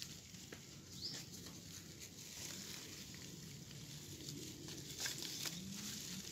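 Faint outdoor background with a steady hiss and a few scattered light clicks and rustles.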